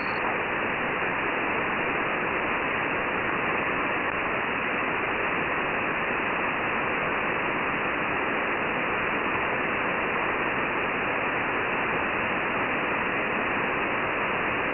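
Shortwave receiver hiss and static on the 11175 kHz HF single-sideband channel between voice transmissions: a steady, even rush of noise that stops sharply above the voice band.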